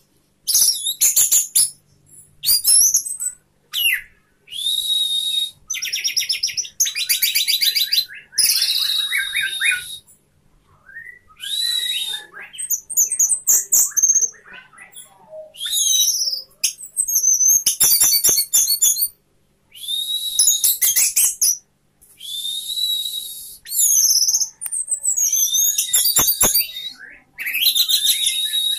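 Caged orange-headed thrush singing at full volume: a long string of short, high, varied phrases, some with fast trills, separated by brief pauses.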